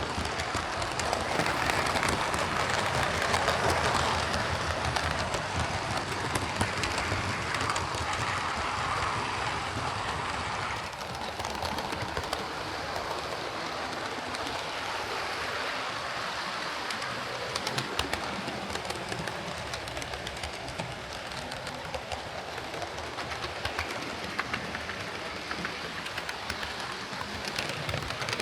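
Hornby OO gauge King Class model steam locomotive running on its track after a service and lubrication: a steady motor and gear whirr with scattered light clicks from the wheels on the rails. The sound drops in level about eleven seconds in.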